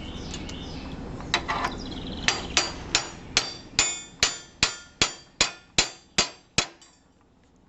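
Hammer striking metal to knock rivets out of a steel hitch part. Two blows come about a second and a half in, then a steady run of about a dozen ringing strikes, roughly two and a half a second, that stops shortly before the end.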